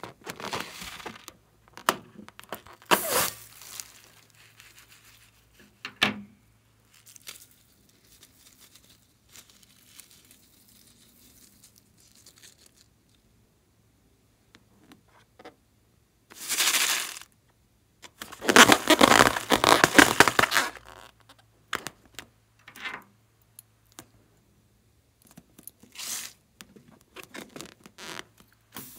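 Scissors snipping rubber balloons and the rubber tearing as they are cut open, in a series of short, irregular crackly bursts, the longest and loudest about two-thirds of the way through.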